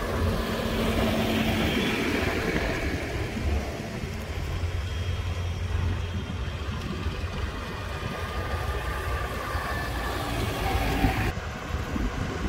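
Tractor engines running with a steady low drone as a tractor drives past close by and more tractors follow on the road.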